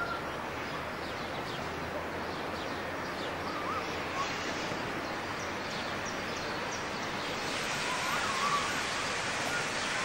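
Steam locomotive approaching from a distance, heard as an even rushing noise that grows a little louder near the end, with a few faint bird chirps.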